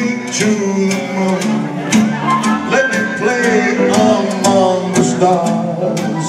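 Live band playing a dance number: drum kit keeping a steady beat of about two hits a second, under bass guitar and sustained keyboard and melody notes.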